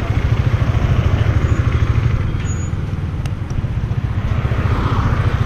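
KTM Duke 390's single-cylinder engine running loudly and steadily, its firing pulses thudding evenly, with a slight dip in level about four and a half seconds in.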